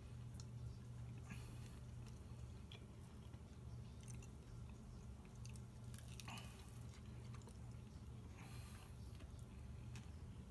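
Faint chewing, biting and lip-smacking of people eating chicken wings, with scattered soft clicks, over a steady low hum.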